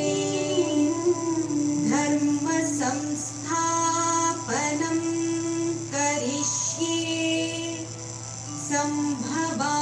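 A woman singing a devotional Hindu bhajan in long held, ornamented phrases over a steady low drone.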